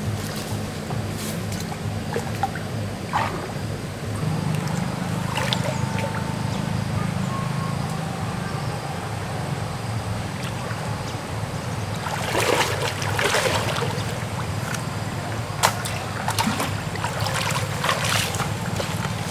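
Small petrol-engine water pump running with a steady low drone, a little louder after about four seconds. Water splashes in bouts about two-thirds of the way through and again near the end.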